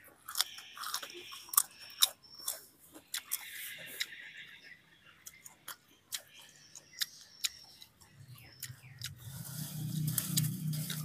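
Close chewing and crunching of a lettuce-wrapped mouthful of pig intestine braised in coconut water, with many sharp wet mouth clicks. A low hum rises near the end.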